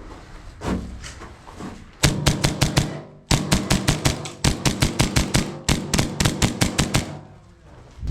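HPA-powered airsoft pistols firing rapid strings of sharp shots, about nine a second, in three bursts that start about two seconds in and stop about seven seconds in.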